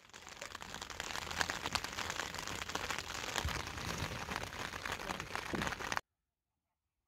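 Rain pattering on a tent's flysheet, heard from inside the Eurohike Ribble 2 tent: a dense, steady patter of drops. It cuts off abruptly about six seconds in.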